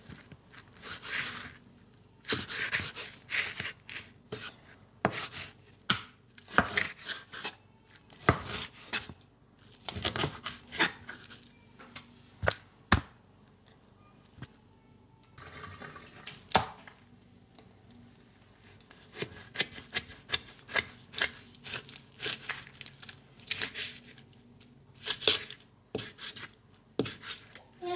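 Knife cutting through a beef tongue on a plastic cutting board: irregular sawing strokes and sharp clicks as the blade meets the board.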